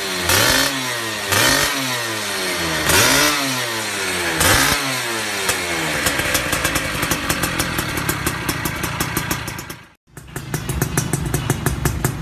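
Two-stroke underbone motorcycle engine through an aftermarket AHM Malaysia racing exhaust, revved four times, each rev rising and falling back to idle, then idling steadily. About ten seconds in the sound cuts off sharply and another two-stroke idles with a fast, even pulse.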